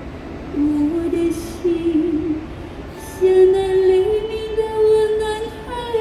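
A woman singing a slow Chinese-language ballad into a handheld microphone. She sings a short phrase, pauses briefly, then sings a longer phrase of held notes starting about three seconds in.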